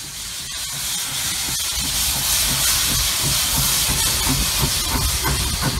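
Diesel locomotives passing directly beneath: a loud rushing hiss of exhaust blowing up from the stacks over the low rumble of the engines. It swells over the first two seconds.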